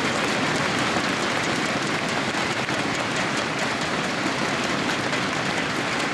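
A large crowd applauding steadily, a dense clatter of many hands clapping.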